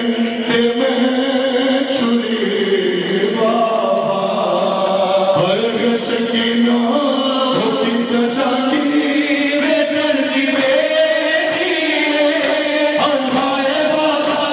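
Noha recited in a chanting style: a male reciter sings a mourning lament with other voices joining in, the melody moving in long held, gliding notes.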